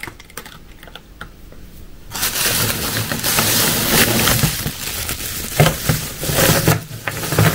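Plastic bread bag crinkling and rustling as a cat noses into it and tugs at it. Small ticks at first, then from about two seconds in a loud, continuous crackle that dies away near the end.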